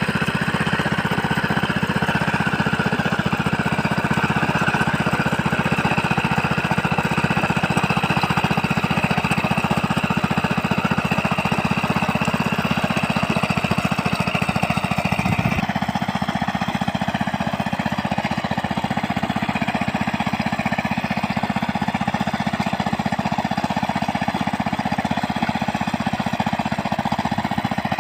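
Small engine of a mini rice-paddy tiller running steadily with a rapid, even firing beat. Its tone changes abruptly a little over halfway through.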